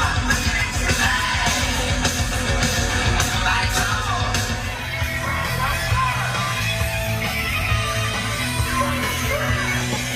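Rock music with shouted vocals playing over the car's Bose premium stereo, with a steady heavy bass.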